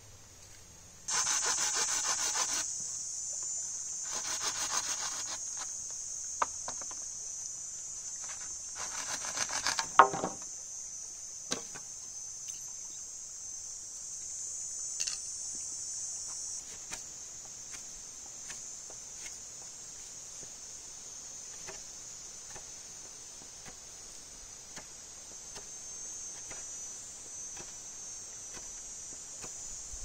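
Steady high-pitched insect buzzing, like crickets or cicadas, starting about a second in. Over it come a few bouts of rustling and scraping in the first ten seconds, then a couple of sharp clicks.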